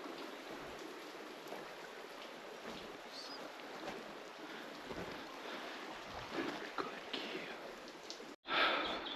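Steady rushing of a small river flowing over stones. Near the end it cuts off for an instant and comes back louder.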